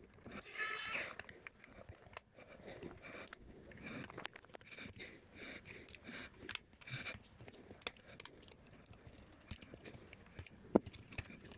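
A precision screwdriver working the small screws of a Dell Chromebook laptop's chassis, with a brief whirr about half a second in. Faint clicks, taps and light scraping of plastic and metal parts being handled follow, with two sharper clicks in the second half.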